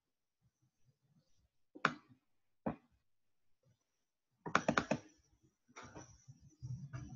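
Sharp clicks and knocks, as of a computer mouse and hand movements at a desk: two single clicks about two seconds in, then a quick run of about five clicks a little past the middle, and a low rumbling handling noise near the end.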